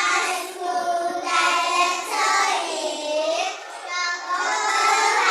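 A group of children's voices in unison, chanting an answer in a sing-song way.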